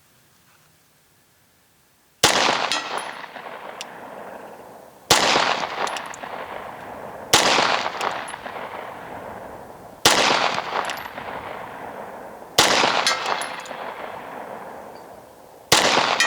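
Six pistol shots from a Glock 23 Gen 4 firing 9mm through a Lonewolf 40-to-9 conversion barrel, spaced about two to three seconds apart and starting about two seconds in. Each shot is followed by a ringing that dies away slowly, the sound of the steel gong target being hit.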